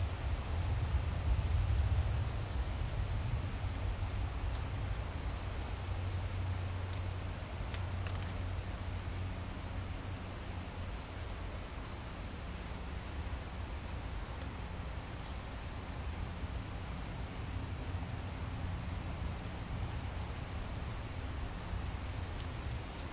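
Wind buffeting the microphone and stirring the grass, a steady low rumble that eases after the first couple of seconds. Faint, short high chirps come every second or two over it.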